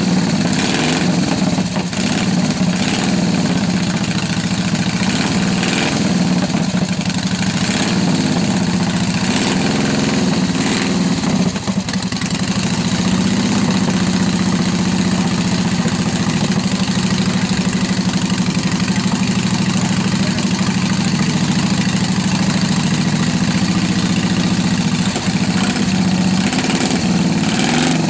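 Unrestored 1928 Indian motorcycle's V-twin engine running steadily at idle, with a brief dip in level a little before the middle.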